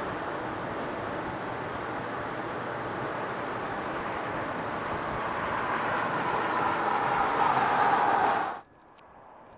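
Ford Mustang driving on a road, a steady rush of tyre and engine noise that grows louder as the car closes in, then cuts off abruptly near the end.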